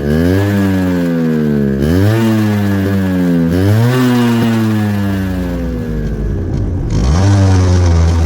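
Yamaha RX135's air-cooled two-stroke single on its stock exhaust, revved three times in quick blips, the pitch jumping up sharply and sinking slowly after each. It then settles back to a low, steady idle near the end.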